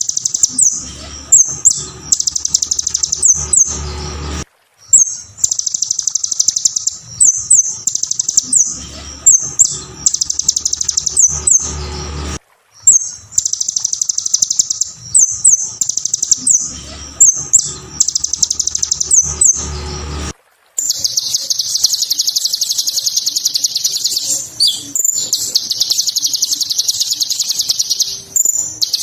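Kolibri ninja (konin) sunbird singing a fast, high, shrill twittering song. It comes in passages of about eight seconds broken by brief silences, with a low rumble under the first three. In the last eight seconds an unbroken high song runs on.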